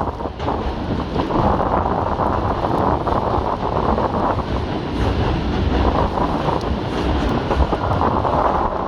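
Strong blizzard wind buffeting the microphone in a continuous low rumble that swells and eases in gusts.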